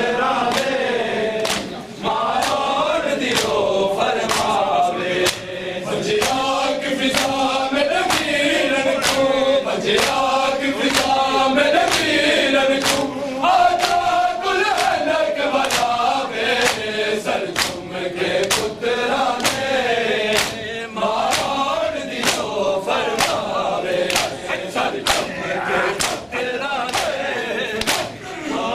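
A group of men chanting a noha, a Muharram lament, in unison, over the steady slap of hands striking chests together (matam), a little faster than one strike a second.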